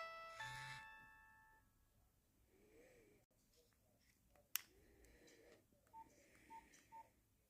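A Nokia 2720 flip phone's ringtone melody ends, its last notes fading out over the first second or so. The phone's keypad follows faintly: a sharp click about four and a half seconds in, then three short beeps near the end.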